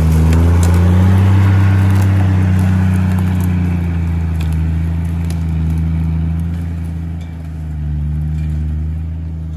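Toyota LandCruiser 80 Series engine running under steady throttle as the 4WD drives off along a bush track, easing off briefly about seven seconds in. A few sharp cracks of sticks under the tyres come near the start and again about four and a half seconds in.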